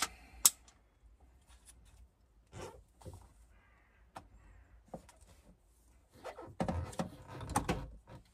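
Knocks and clicks of a diesel heater unit being handled and set down blind onto its mounting plate: one sharp knock about half a second in, a few scattered small clicks, then a busier run of knocks and rustling near the end.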